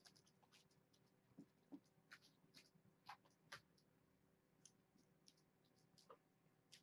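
Very quiet room with a faint steady hum, broken by scattered soft clicks and light taps from kittens moving about and eating in their pen.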